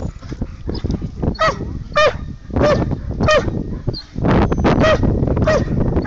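A muzzled dog barking at a decoy: short, honking barks coming about every half-second to second as it lunges on its leash. A longer rush of noise falls a little past halfway.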